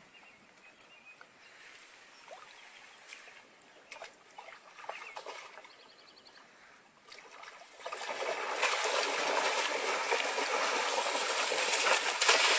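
Quiet at first with a few faint clicks. Then, about eight seconds in, a continuous splashing of water sets in and slowly grows louder.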